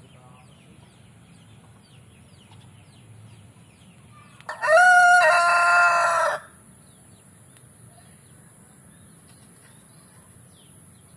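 An ayam Bangkok (Thai fighting-breed) rooster crows once, about four and a half seconds in: a single loud call of nearly two seconds that rises at the start and then holds its pitch.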